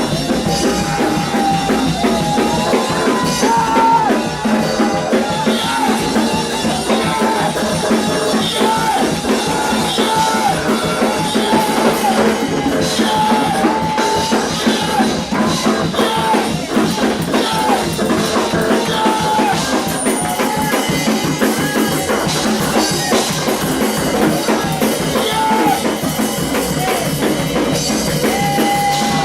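Up-tempo gospel music from a church band, with a drum kit driving a fast beat under a melodic instrument line.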